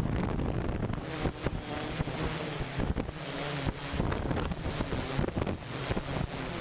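Construction machinery: an engine running steadily, with scattered knocks and wind buffeting the microphone.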